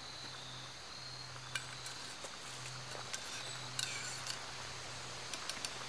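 Scattered small clicks and clinks of a metal spoon working in a small metal camp cup, over a faint steady background hum.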